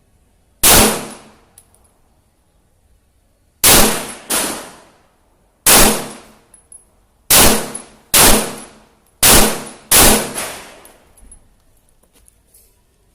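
Eight 9 mm pistol shots from a Glock 17 MOS in a KPOS Scout chassis, fired at an unhurried pace with a few in quick pairs, each shot's report trailing off over about half a second.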